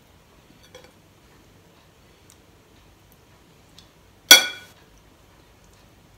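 Metal spoon clinking against a ceramic bowl: one sharp ringing clink about four seconds in, with a couple of faint taps of the spoon before it.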